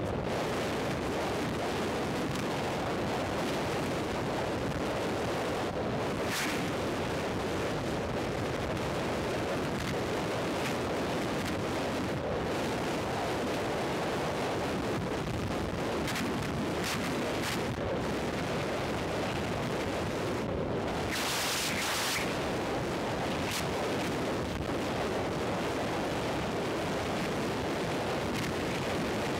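Steady wind rush buffeting an action camera's microphone on a motorcycle moving at highway speed, with a few brief louder gusts now and then.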